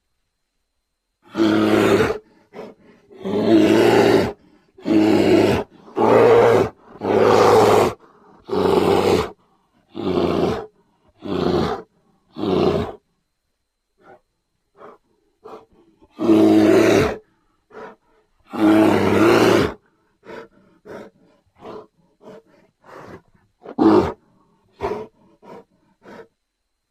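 Grizzly bear roars and growls: a string of loud calls about a second long each, cut apart by silent gaps. After them comes a run of short, quieter grunts, broken by two more full roars.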